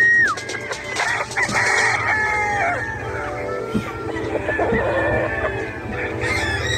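Gamefowl roosters crowing, one crow dropping off just after the start and several more overlapping about one and a half to three seconds in, with hens clucking.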